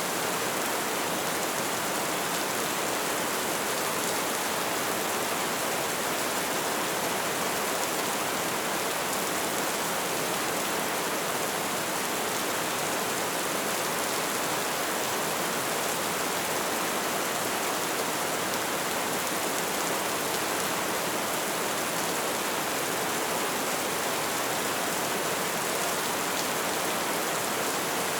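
Steady rainfall, an even hiss with its weight in the upper range, holding the same level throughout.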